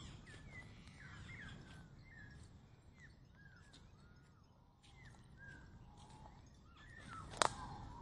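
Birds calling in the trees: many short, faint chirps and whistled notes, some gliding up or down. A single sharp click about seven and a half seconds in is the loudest sound.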